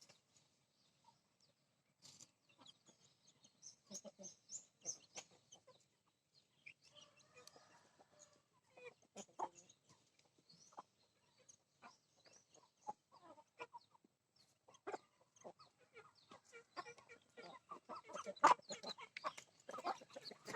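Backyard chickens clucking on and off, in short scattered calls mixed with small clicks, growing busier and louder toward the end.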